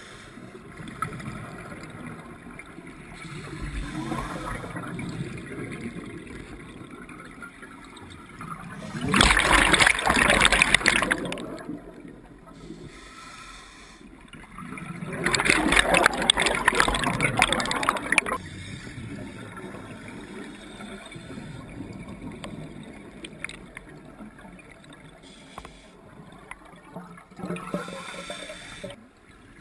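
Scuba regulator exhaust underwater: two loud rushes of exhaled bubbles, each two to three seconds long, about six seconds apart, with smaller bubble noises about four seconds in and near the end over a low steady wash of water.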